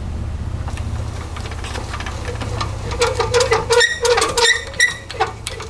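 Low steady rumble of a pickup truck idling, then from about three seconds in a trailer tongue jack being cranked down, its mechanism squeaking in quick repeated chirps as the coupler drops onto the hitch ball.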